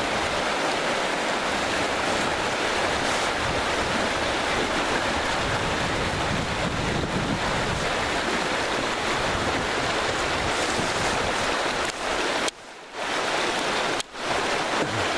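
Steady rush of whitewater rapids, fast river current churning over rocks. It breaks off briefly twice near the end.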